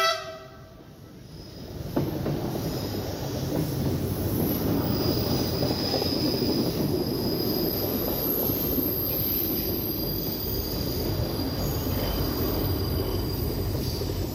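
Heritage diesel railcar train led by X 3890, an X 3800 'Picasso' railcar, running past: a brief horn note at the very start, then from about two seconds in the steady rumble of the diesel engine and wheels on the rails, with a faint high wheel squeal over it from about five seconds.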